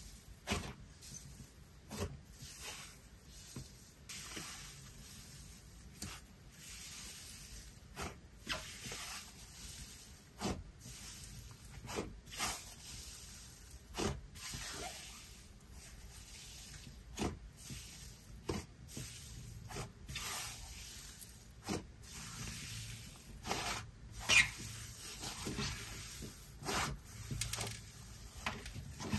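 Cloud slime being pressed, folded and stretched by hand, giving irregular soft crackling sizzles and small clicks and pops.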